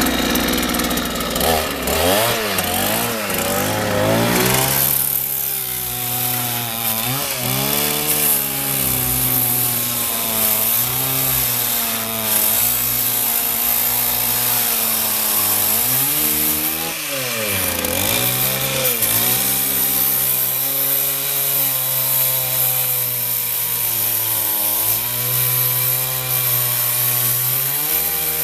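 Cheap Chinese two-stroke petrol chainsaw running, its engine pitch dipping and recovering several times.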